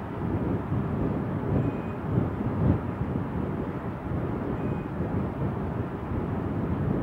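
Wind buffeting the microphone: a steady, gusting low rumble with no distinct events.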